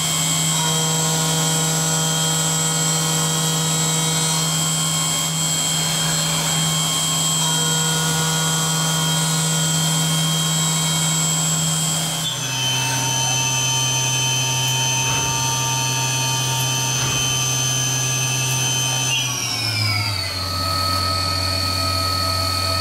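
Syil X7 CNC milling machine cutting the fixture plate under flood coolant: a steady spindle whine with coolant spray hiss. The pitch steps down abruptly about halfway through, then glides down to a lower pitch near the end, as the spindle speed changes between operations.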